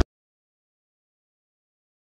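Digital silence: the sound cuts out completely just at the start, on a cut to black.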